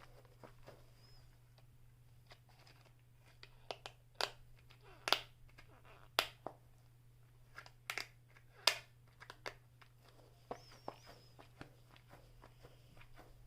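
Small objects being handled: scattered light clicks, taps and crinkles of toys and their packaging, most of them bunched between about four and nine seconds in, over a faint steady hum.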